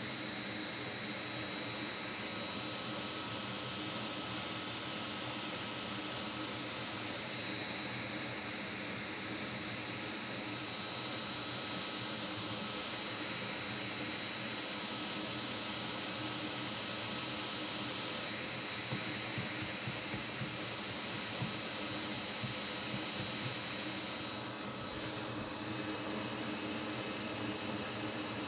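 Steady rushing hiss of blowing air from electronics rework bench equipment, its upper pitch dipping and recovering several times, with a faint steady high whine underneath.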